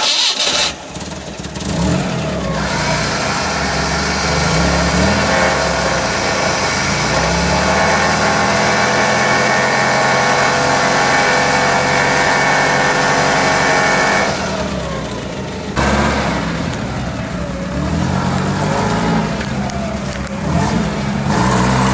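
A UAZ-469's bumper winch running under load with a steady whine for about twelve seconds before it stops. After that, a UAZ's engine runs and revs up and down.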